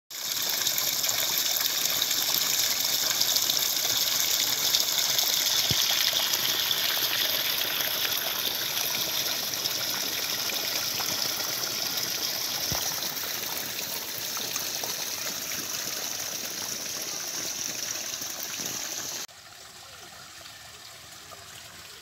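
Water gushing and splashing steadily as it pours down into a muddy earthen channel. About 19 seconds in it drops suddenly to a much quieter flow.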